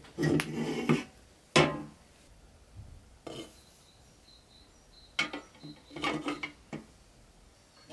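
Pressed-steel Tonka toy truck body parts, freshly powder-coated, being handled and set down on a wooden tabletop: a handful of separate metallic clunks and clatters, with a quick run of several knocks near the end.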